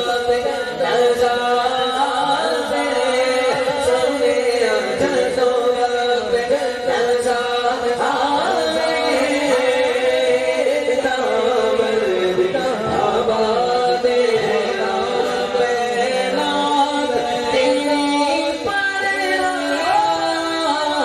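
Male voice singing a Punjabi naat into a microphone, with a second male voice on another microphone backing him. The melismatic singing is loud and unbroken.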